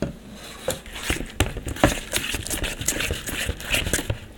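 Metal spoon stirring glue slime mixture in a plastic bowl, scraping and clicking against the bowl in quick, irregular strokes.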